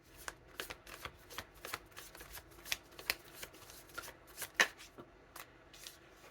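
Tarot cards being shuffled and handled by hand: a run of irregular card flicks and slaps, the sharpest one a little past halfway.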